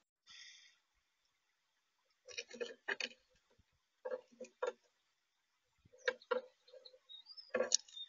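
Sharp taps and clicks in quick clusters, a few strokes at a time and about every second and a half, from a male northern cardinal pecking and cracking seed on the feeder tray right at the microphone. There is a short high note about half a second in, and a thin rising chirp near the end.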